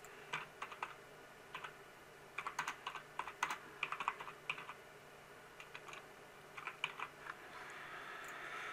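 Computer keyboard being typed on in irregular runs of quick keystrokes, a short word or name being entered, with the densest run from about two and a half to four and a half seconds in and a few more keystrokes near the seven-second mark.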